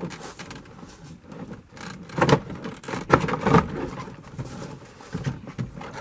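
A 2005 Duramax pickup's plastic interior door panel being pushed and knocked back onto the door by hand, with a run of short knocks and rattles from the trim and its clips. The loudest knocks come about two to three and a half seconds in.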